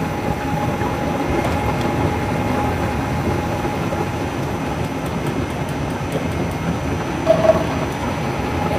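Hot oil sizzling and bubbling steadily around thick-cut potato fries as they finish deep-frying, the fries now done and being lifted out with a wire skimmer.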